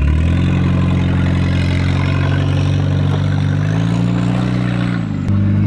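Turbo Volvo 940's engine running close by, mostly steady, with throttle changes: the pitch dips a little past the middle, then dips again near the end before coming back up louder.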